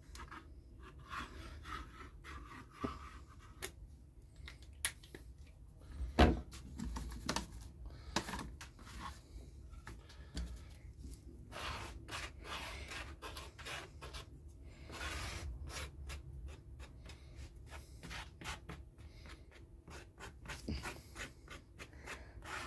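Glue being spread with a small stick over a thin board template: quiet scraping and rubbing with light handling clicks, and one louder knock about six seconds in.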